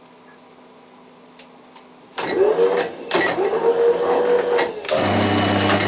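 Milling machine running: a loud motor whine starts about two seconds in, rising in pitch, dips briefly and comes back up, then gives way near the end to a lower steady hum before cutting off suddenly.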